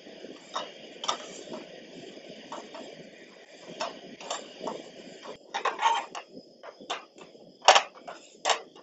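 Steady hiss of a portable gas camp stove burner under a frying pan, with light taps as bun halves are set in the pan. About five seconds in the hiss thins, and a plastic spatula knocks and scrapes against the pan several times, loudest near the end.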